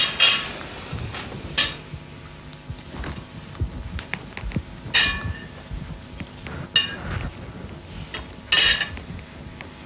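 Cutlery clinking against china plates and bowls at a dinner table: about five sharp, ringing clinks with smaller taps between them.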